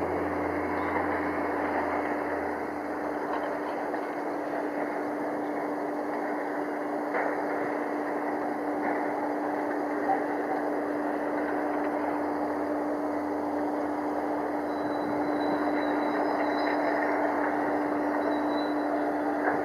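A Piper PA-28 Cherokee's single piston engine and propeller at takeoff power, heard from a distance as a steady drone with a constant hum running through it.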